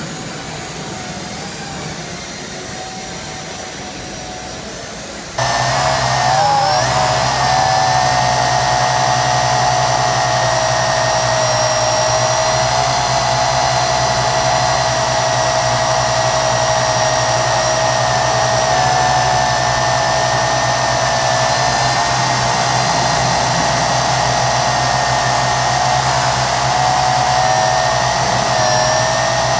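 Small quadcopter's electric motors and propellers whining steadily, with a few pitched tones that waver slightly as it hovers and turns. About five seconds in, the sound jumps suddenly louder and closer, as picked up by a camera mounted on the craft itself.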